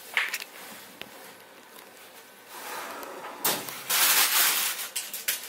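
A metal loaf tin being pulled out of a hot oven on its rack with oven mitts: a short click near the start, then a loud rustling, scraping noise over the last two seconds as the tin and its baking paper slide out.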